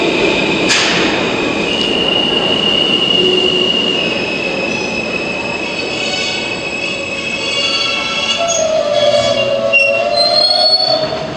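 New York City subway train wheels squealing against the rails, several shrill tones that shift in pitch over the train's rumble, with a sharp clank about a second in.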